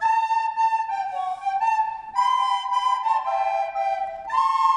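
A group of children playing descant recorders together, a simple tune of held notes changing every half second or so, with more than one note sounding at a time.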